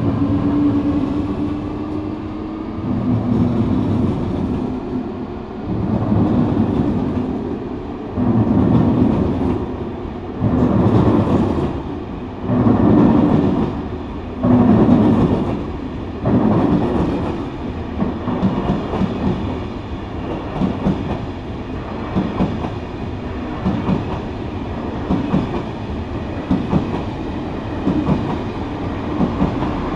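Eurostar Class 373 train pulling out and gathering speed as it passes close by: a rising whine from the power car at first, then a continuous rumble with repeated bursts of wheel clatter over the track, the bursts coming closer together as it speeds up.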